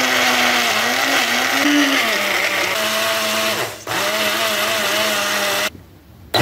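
Mueller personal blender's motor running in pulses, churning ice cream and milk into a milkshake. It makes a loud whine that wavers in pitch under the load. It breaks off for a moment about four seconds in, stops near the end, then starts again just at the close.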